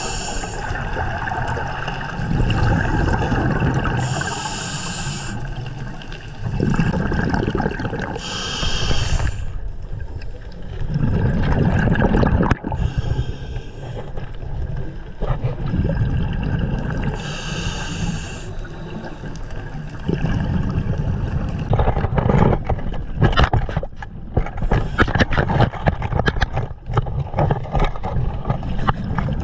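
Scuba diver's regulator breathing, heard underwater: a hiss of inhalation every few seconds over the steady rumbling of exhaled bubbles. Near the end come sharp clicks and knocks as the camera and a gloved hand brush through kelp and against rock.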